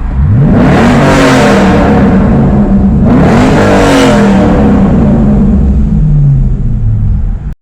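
Corvette Z06's LS6 V8 revved twice in neutral under a bridge, each rev climbing and then falling back over about three seconds. The sound cuts off suddenly near the end.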